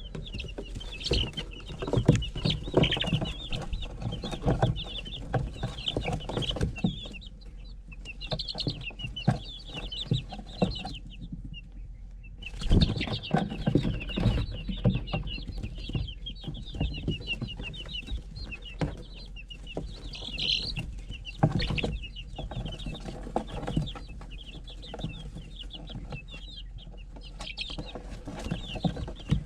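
A group of young Cream Legbar chicks peeping, many short high cheeps in quick succession that pause briefly about halfway through. Scattered knocks and rustles come through with them.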